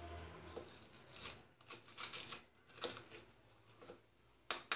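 Hot mustard oil in a pan crackling and spitting faintly, in short bursts of hiss, loudest about two seconds in and again near the end.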